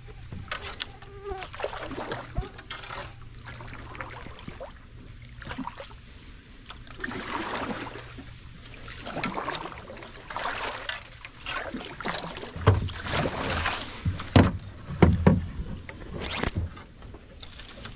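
Kayak paddle strokes swishing through the water, one after another, with a few heavy low thumps in the second half.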